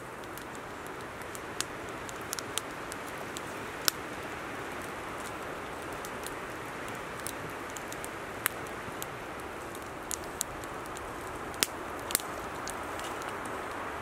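Wood campfire crackling: sharp pops at irregular times over a steady hiss.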